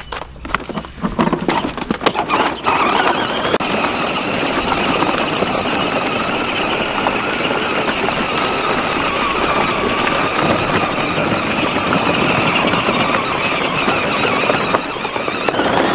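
Battery-powered ride-on toy tractors driving over gravel: a steady whine from their electric motors and gearboxes over the crunch of plastic wheels on loose stones. It sets in a couple of seconds in, after some crunching on the gravel.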